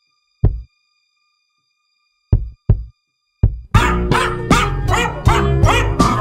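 Music made from pitched samples of a small white American Eskimo dog's barks. A few short, deep bark hits come spaced apart, then about two-thirds in a dense run of barks tuned to notes plays a melody over a steady low bass line.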